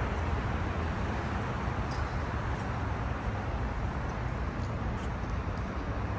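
Steady outdoor background noise: an even hiss over a strong low rumble, with no clear single event.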